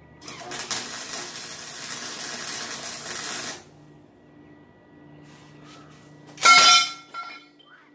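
Electric welding arc crackling and hissing on a steel square-tube frame for about three and a half seconds, then stopping. About three seconds later comes one loud, short metallic clank with a brief ringing tone.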